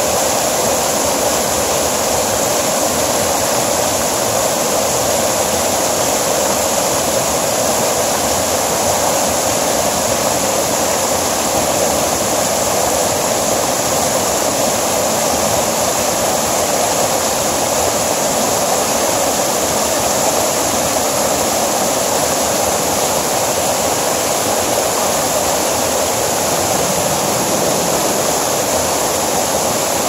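Water of a small mountain stream rushing and splashing down a series of little cascades over boulders: a steady rush with no breaks.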